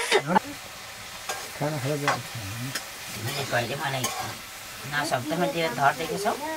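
A metal ladle stirring and scraping in a wok of curry over a wood fire, with the pan sizzling throughout. A low human voice is heard briefly a few times.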